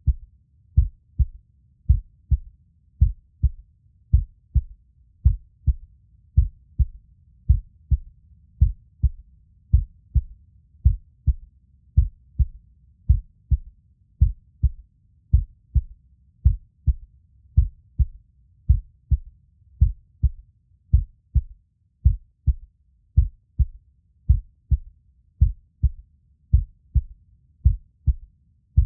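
Heartbeat sound: a steady run of short, low thumps, about two a second, repeating evenly without a break.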